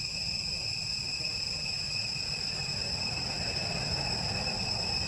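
A steady, high-pitched whine over a low rumble.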